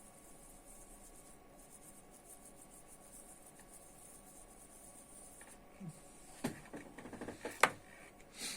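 Small hard objects being handled: after a stretch of faint steady hiss, a handful of sharp clicks and taps come in the last two seconds, the loudest about a second before the end.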